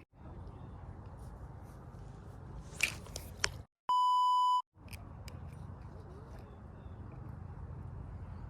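A single steady electronic beep, about three quarters of a second long, a little past the middle, with the background cut to dead silence just before and after it, as with an edited-in bleep tone. Around it, steady low background noise with a few short clicks before the beep.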